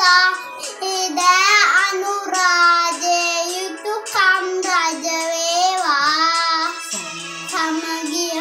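A young boy singing a Sinhala Buddhist devotional song (bathi gee), in long held notes that bend and waver in pitch, phrase after phrase with short breaths between.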